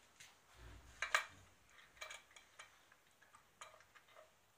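Scattered small clicks and clinks of hand tools and small guitar parts being handled on a workbench, with a sharp double click about a second in as the loudest sound.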